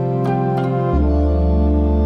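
Slow, soft background music of held chords. Two notes are struck in the first second, then the chord changes and a deep bass note comes in.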